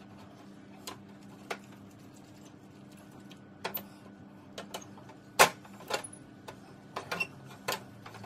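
Silicone spatula stirring and scraping a thick milk-powder dough in a non-stick frying pan, with irregular knocks and clicks of spatula and pan, the loudest about five seconds in. A faint steady hum runs underneath.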